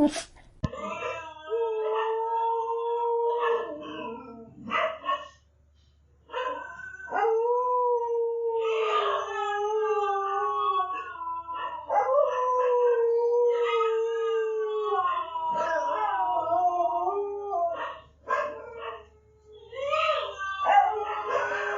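A dog howling: a series of long drawn-out howls, each lasting a few seconds and sagging slightly in pitch, with short breaks between them, the longest about five to six seconds in.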